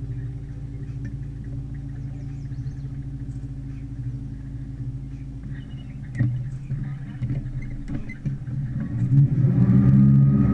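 Small boat's motor running with a steady low hum. About six seconds in it turns uneven, and near the end it gets louder, its pitch wavering.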